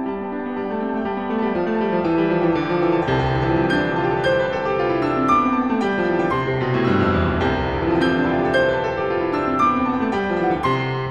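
Instrumental background music: a piano playing flowing runs of notes that step down and back up.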